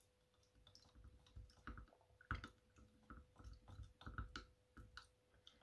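Faint, irregular clicks and scrapes of a wooden stirring stick against the inside of a small glass jar while thick primer is mixed with cellulose thinners.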